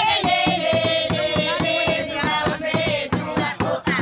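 A group of women singing and clapping in a steady rhythm, with one high voice holding a long note that slowly falls in pitch.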